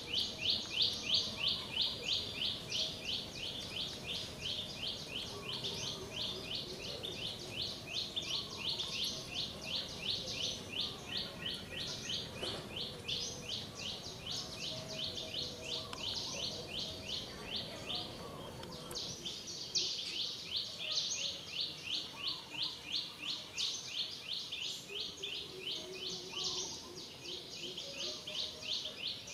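Insect chorus, a high rasping trill pulsing evenly several times a second without a break.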